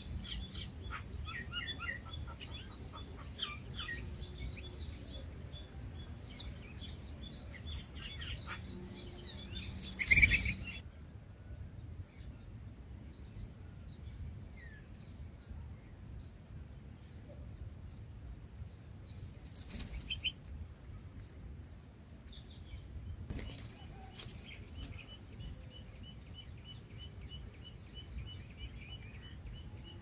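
Red-whiskered bulbul at its nest with nestlings: runs of short, high chirps for about the first ten seconds, then a brief loud flutter of wings about ten seconds in. Two shorter flutters come later, and a thin, fast ticking call runs through the last several seconds.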